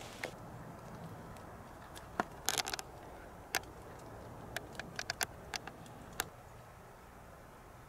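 Quiet outdoor hiss broken by about a dozen sharp, irregular clicks and ticks, a few of them in quick clusters.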